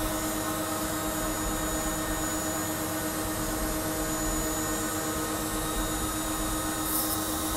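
Mini CNC router's spindle running steadily as its end mill cuts into a wooden block, over the steady drone of a Henry vacuum used for dust extraction.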